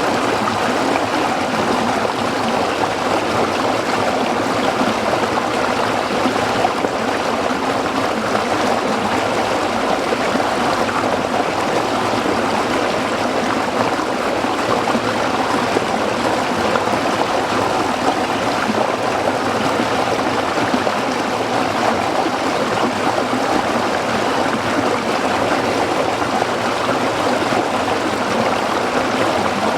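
Small stream running over rocks, a steady babble and trickle of water.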